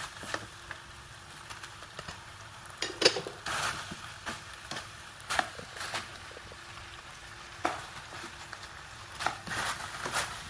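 Meatballs sizzling in sauce in a non-stick frying pan while a spatula stirs them, with scrapes and a few sharper knocks of the spatula against the pan, the loudest about three seconds in.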